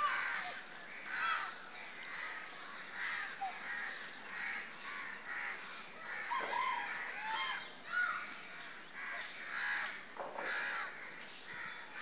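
A busy chorus of birds calling over one another, many short calls overlapping throughout, some gliding up or down in pitch.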